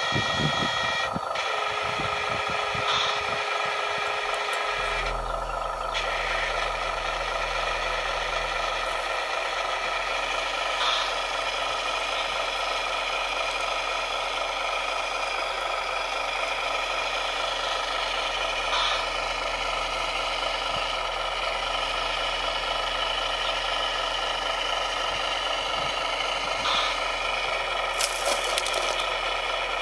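Radio-controlled scale model construction machines (a wheel loader and an excavator) running, with a steady mechanical whine of their small motors and gears and an occasional click. Near the end there is a brief clatter as the loader tips dirt and stones into the model dump truck's bed.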